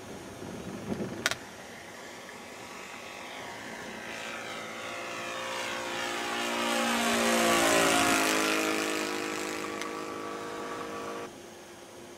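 Propeller airplane flying past. Its engine sound swells, peaks about two-thirds of the way in, and drops in pitch as it goes by, then cuts off abruptly near the end. A short click comes about a second in.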